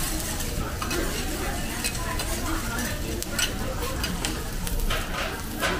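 Metal spatulas scraping and clacking across a steel teppanyaki griddle as egg fried rice is stirred and pushed, over a steady sizzle from the hot plate. There are several sharp scrapes about a second apart, the loudest near the end.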